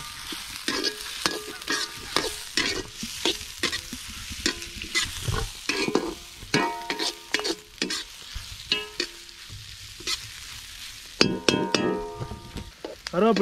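Onions frying and sizzling in oil in a large cooking pot, stirred with repeated scraping strokes against the pot. A few brief ringing tones come with the scraping about halfway through and near the end.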